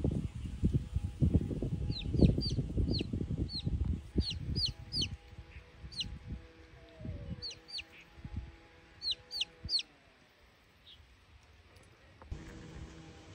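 Cats eating from a bowl close by: a dense run of wet chewing and lapping clicks for the first few seconds, then sparser. Over it a chick peeps again and again, short high notes that drop in pitch, mostly in the middle of the stretch.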